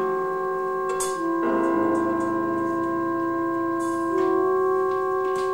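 Live experimental music accompaniment: several held tones sounding together, the pitches shifting a few times, with a sharp struck sound about a second in and another about four seconds in.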